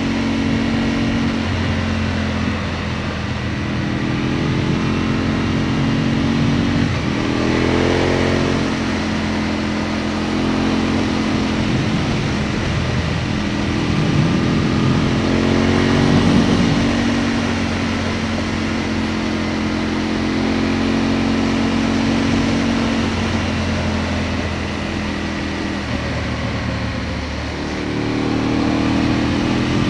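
Aprilia Tuono motorcycle engine heard from on board while riding, its note rising and falling with the throttle, climbing in pitch about a quarter of the way in and again about halfway, over steady wind rush.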